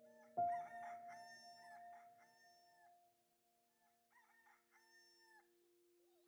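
A rooster crowing twice, the second crow fainter, over a bell-like chime that is struck once about half a second in and slowly rings out.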